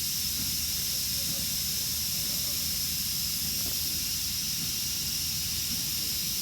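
Steady hiss over a low rumble, the continuous background noise of sawmill machinery running.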